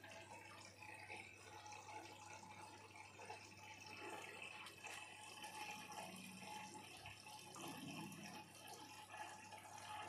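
Bosch Serie 6 front-load washing machine faintly taking in water for a rinse, over a steady low hum.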